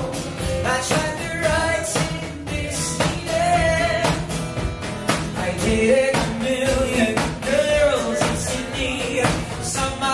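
A song with a singing voice over a steady beat.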